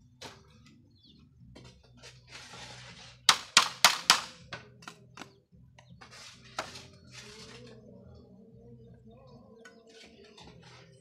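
A quick run of about five sharp knocks on bamboo, a little past three seconds in, with rustling and scraping of hand work before and after.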